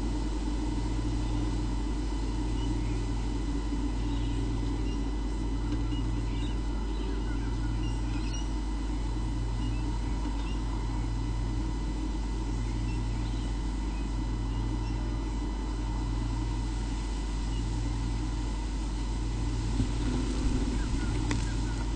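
Steady low hum with a deeper drone that pulses on and off about every second and a half, and a few faint high chirps in the middle.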